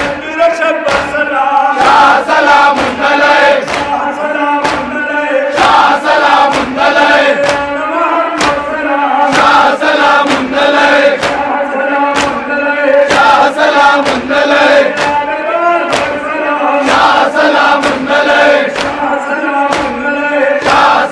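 A crowd of Shia mourners chanting a noha in unison, with hand slaps of matam (chest-beating) keeping a steady beat under the voices.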